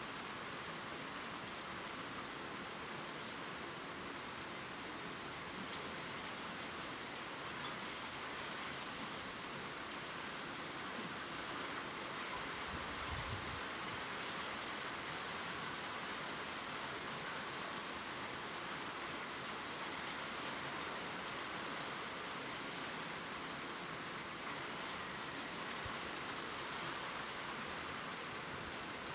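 Steady gentle rain falling on leaves: an even hiss with scattered ticks of single drops.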